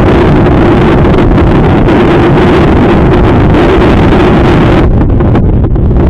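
Strong wind buffeting the microphone, loud throughout, with a steady hum underneath.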